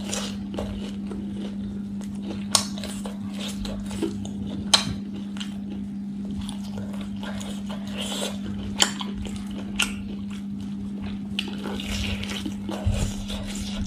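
Close-miked eating of a crispy fried chicken drumstick: chewing and mouth sounds, with several sharp crunchy clicks from biting and chewing the crisp coating, and another bite near the end. A steady low hum lies under it throughout.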